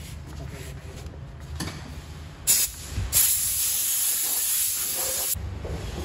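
A short blast of pressurized spray, then a steady hiss held for about two seconds, the kind used to clean brake parts during a pad change.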